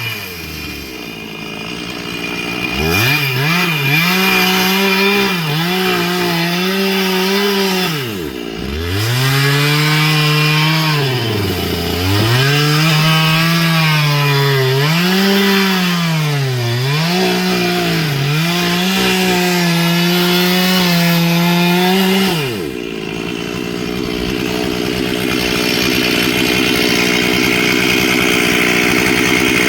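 Chainsaw running hard and cutting through wood, its engine pitch sagging under load and climbing back again and again. A little after two-thirds of the way through it gives way to a lower, steadier running.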